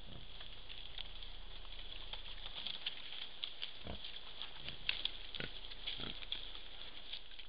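Wild boars grunting at close range while moving over dry leaf litter, with short low grunts about four and five to six seconds in and scattered light crackles of leaves and twigs. A steady high hiss runs underneath.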